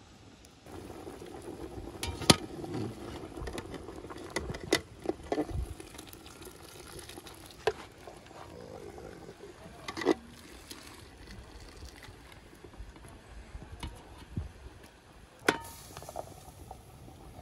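Lamb-head broth bubbling at the boil in a large metal pot while a perforated metal skimmer scoops out the boiled heads and feet, sloshing liquid and knocking sharply against the pot several times, the loudest knock about two seconds in.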